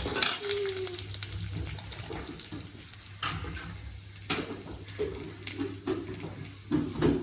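Urad dal and chana dal sizzling in hot oil in a kadai as they roast, with a steady hiss and a few sharp knocks of a spatula stirring them.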